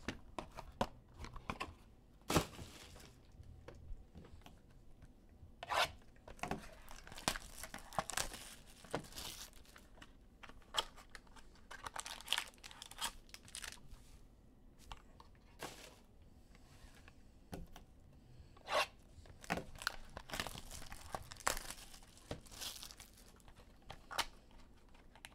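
Trading card pack wrappers being torn open and crinkled: a scattered run of short sharp rips and rustles.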